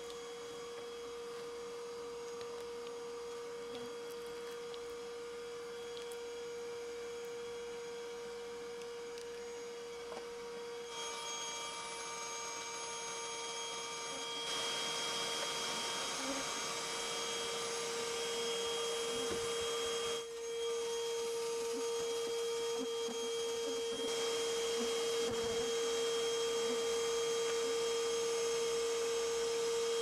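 Steady hum of a bee vacuum's motor running, one unchanging tone over a hiss, getting louder about halfway through.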